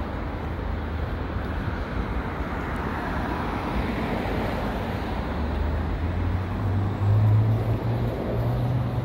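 Street traffic noise with a city bus's engine drone. From about five seconds in, the drone rises in pitch in a few steps as the bus accelerates, and it is loudest around seven seconds in.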